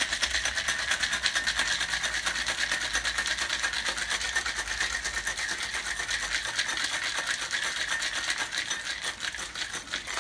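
Ice cubes rattling hard inside a Boston cocktail shaker (metal tin over a mixing glass) as it is shaken vigorously, a fast, even clatter that stops at the very end. The shake runs about ten seconds, long enough to chill and mix the drink until the tin frosts.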